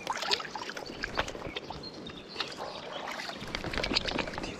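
Hands splashing and swishing in shallow river water: a busy run of small splashes and drips.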